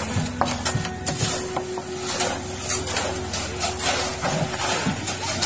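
Steel hoes and shovels scraping and chopping through wet concrete mix and gravel during hand mixing: many irregular scrapes and knocks. A steady motor hum runs underneath.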